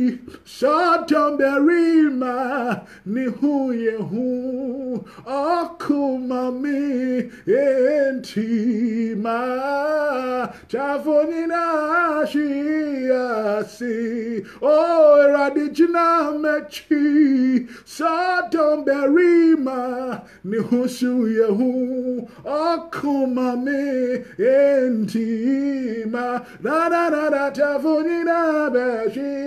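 A single voice singing a slow worship song unaccompanied, phrase after phrase with short breaths between.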